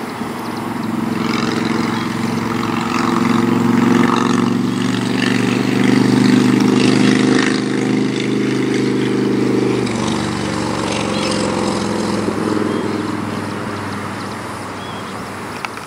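A motor engine passing: a steady low hum that builds over the first few seconds and holds. About ten seconds in its pitch drops slightly and it fades away.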